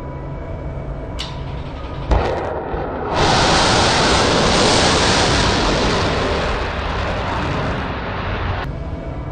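Ship-launched Evolved SeaSparrow Missile (ESSM) firing from a vertical launcher: a sharp blast about two seconds in, then the loud roar of its solid rocket motor for about five seconds, fading out near the end.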